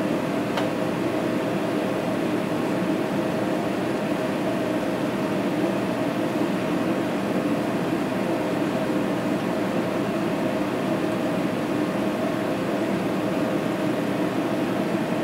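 Steady mechanical hum of bakery equipment, with a faint steady tone in it and no change throughout; one faint click about half a second in.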